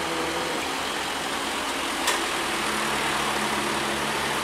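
Heavy diesel truck engines running steadily, with a sharp click about two seconds in.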